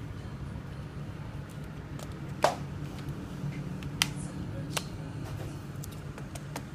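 A few sharp, small clicks of tools and phone parts being handled, the loudest about two and a half seconds in and others near four and five seconds, over a steady low hum.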